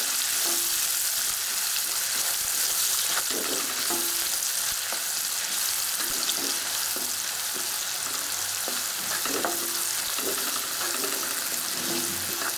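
Oil sizzling steadily in a pan as chopped garlic, ginger, coriander stems and spring onion are stir-fried, with a wooden spatula repeatedly scraping and stirring through them against the pan.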